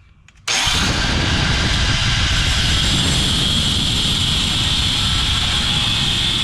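Metal grinder running steadily under load with a high whine, grinding through the studs on the exhaust's catalytic converter flange. It starts about half a second in and cuts off sharply at the end.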